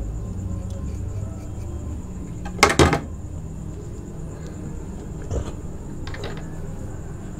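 Close-miked handling of a raw aloe vera leaf: two sharp, loud clicks in quick succession just under three seconds in, then two fainter ones later, over a steady low hum.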